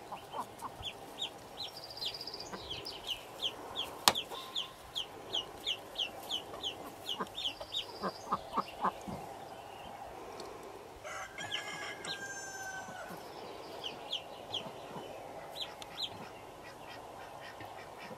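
Black Indian Runner ducklings peeping from under their mother: a fast run of short, high, falling peeps for the first eight seconds or so, then scattered peeps. A sharp click comes about four seconds in, and a longer, drawn-out call with several pitches about eleven seconds in.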